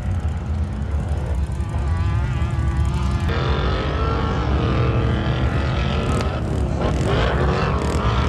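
Off-road vehicle engines revving over a heavy low rumble, the engine pitch rising and falling with the throttle; the sound changes abruptly about three seconds in.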